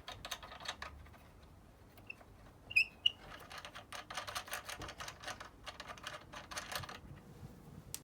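Rapid light clicking and rattling, with two sharp metallic clinks about three seconds in.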